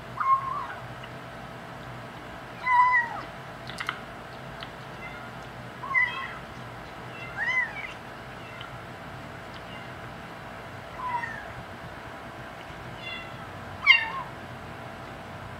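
Five-week-old kitten mewing as it eats dry cat kibble: about seven short, high mews spread out, some bending up and down in pitch, the kitten's 'talking' while eating.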